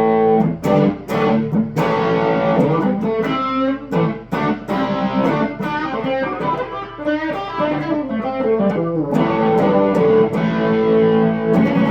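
Electric guitar played through a Marshall Origin 20 all-valve amp with an Ibanez Tube Screamer overdrive pedal switched on, playing overdriven chords and riffs. A chord rings out near the start and another is held through the last few seconds.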